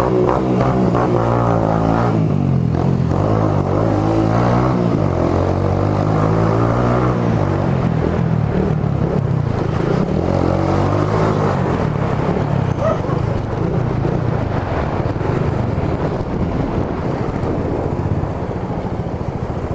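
Suzuki GSR 150i's single-cylinder engine running through an aftermarket Roncar SS Oval exhaust while being ridden, its note rising and falling as the throttle opens and closes, then running steadier in the second half.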